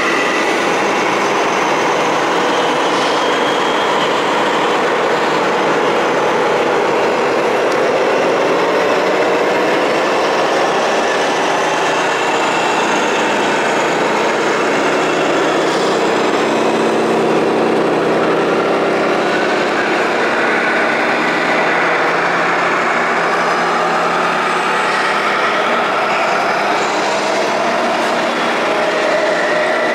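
Several radio-controlled model trucks driving, their electric motors and gearboxes whining in tones that slowly rise and fall over a steady hiss.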